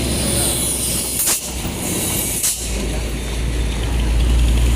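A heavy vehicle's engine running as a steady low rumble, louder from about halfway. Two short sharp hisses come about a second apart.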